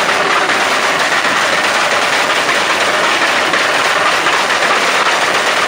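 Loud, steady engine and exhaust noise from a modified car, a dense rush with a fast rattling texture and no clear pitch.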